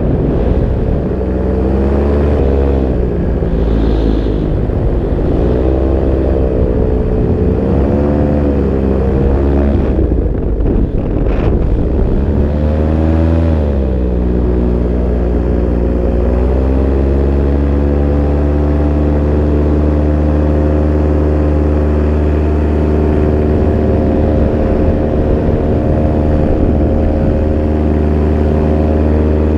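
Paramotor engine and propeller running, its pitch rising and falling again and again, then settling to a steady pitch about halfway through.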